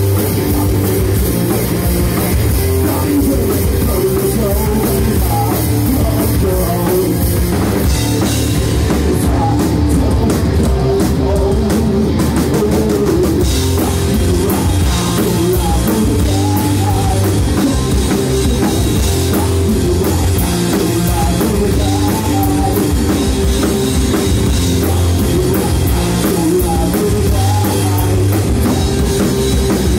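Live rock band playing a song: electric guitar, electric bass and drum kit, loud and steady.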